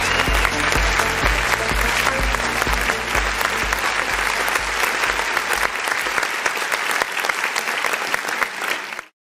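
Melodic techno / progressive house mix with a steady four-on-the-floor kick drum about twice a second, the beat and bass fading out over the first six seconds under applause. All sound cuts off abruptly near the end.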